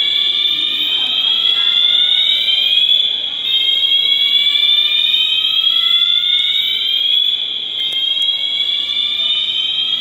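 Building fire alarm sounding an evacuation signal: a tone that rises slowly in pitch over about four seconds, drops back and rises again, repeating.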